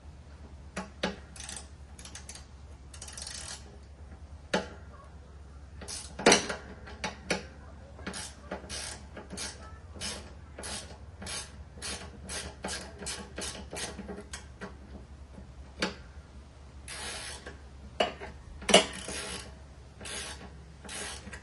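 Ratchet wrench clicking in runs of about three clicks a second while working a bolt on a mower deck spindle, with a few sharper metal knocks in between.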